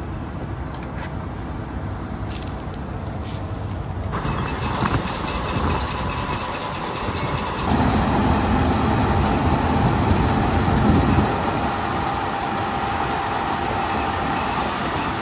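A large engine running, getting louder about four seconds in; about eight seconds in a steady whine joins and the low rumble swells for a few seconds before easing.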